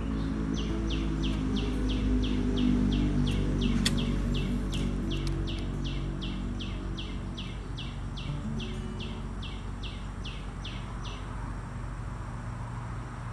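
A bird calling one short high note over and over, about three times a second, stopping about two seconds before the end. Background music with low notes plays underneath.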